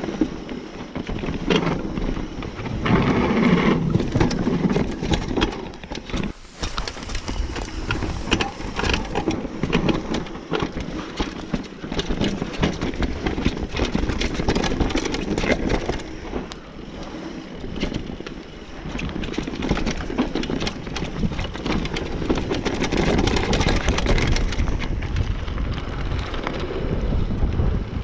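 Downhill mountain bike ridden fast down a rough dirt forest trail: tyres rolling over dirt and roots, with a constant clatter of small knocks and rattles from the bike and a heavy rumble on the camera's microphone, its loudness surging and dipping with the terrain.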